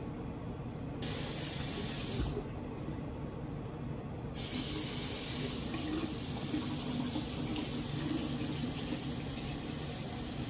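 Bathroom sink tap running, water streaming into the basin; the flow sounds fuller from about four seconds in.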